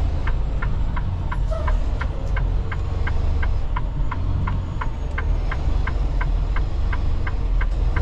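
Semi truck's turn signal clicking steadily, about three clicks a second, over the low rumble of the truck's engine and road noise inside the cab.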